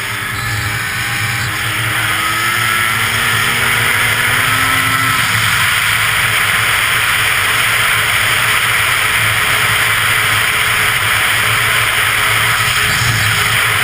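Arctic Cat CFR 800 snowmobile's two-stroke engine accelerating hard, its pitch climbing over the first few seconds. It then runs at high speed under a steady, loud rush of noise.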